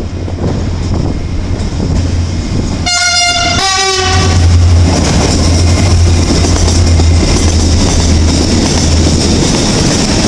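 Train horn sounding two short notes in greeting, a higher one then a lower one, about three seconds in, over the loud rumble of the train passing close by on the rails.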